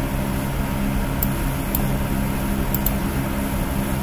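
A steady low mechanical hum, with four faint short ticks in the middle.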